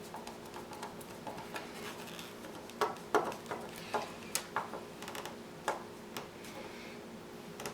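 Irregular small clicks and taps of plastic and metal model-kit parts and a small screwdriver being handled while screws are driven in, with a cluster of sharper clicks about three to five seconds in. A faint steady hum runs underneath.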